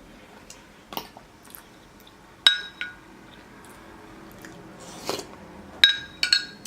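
Cutlery clinking against a dish while eating curry and rice. The three strongest clinks, one about two and a half seconds in and two near the end, each ring briefly, with softer clicks and chewing sounds in between.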